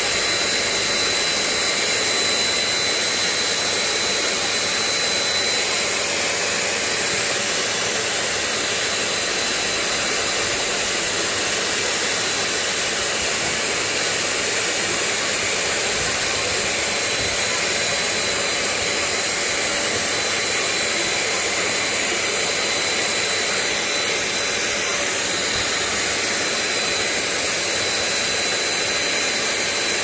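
Eureka Forbes 800-watt handheld vacuum cleaner running steadily as its brush nozzle sucks dust off a cylindrical air-purifier filter: an even rushing noise with a thin high whine.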